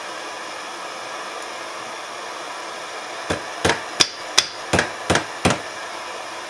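Hammer striking a nail held in tongs against a 9-pound cast iron hobby anvil: seven quick, sharp blows, about three a second, starting about three seconds in. It is an attempt to cut the nail's tip off over the anvil's edge.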